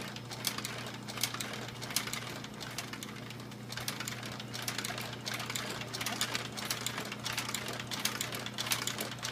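An American Straight Needle industrial sewing machine stitching a leather boot top: its motor gives a steady hum, with irregular clicks from the stitching mechanism.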